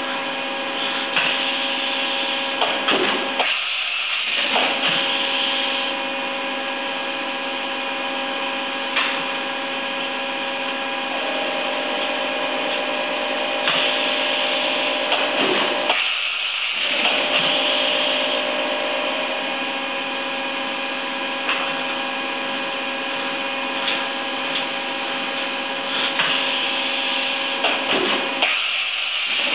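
Bridgeport CNC vertical machining center running: a steady whine of several tones over a hiss. The lower part of the sound drops out briefly three times, about every twelve seconds, and an extra tone joins for several seconds in the middle.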